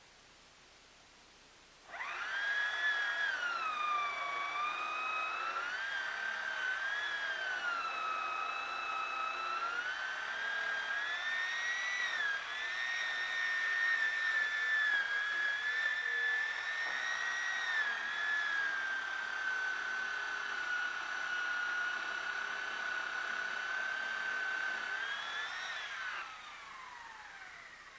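Chainsaw running at high revs while cutting a log, its pitch sagging and rising as the chain works through the wood. It starts suddenly about two seconds in, and near the end the pitch falls away as it winds down.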